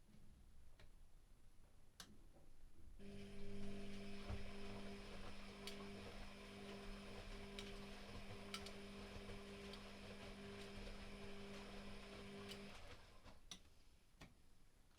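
Privileg Classic 30612 washing machine running a boil wash: its motor starts about three seconds in, runs with a steady hum for about ten seconds and stops. Faint clicks come before and after the hum.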